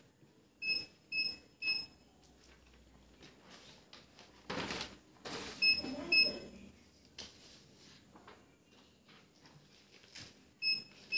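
A heat press's digital controller beeping in short, high groups: three beeps, then two about five seconds later, then two more near the end. This is the alarm that sounds when the pressing timer reaches zero. In the middle comes a short burst of rustling and knocking from the press and the shirt being handled.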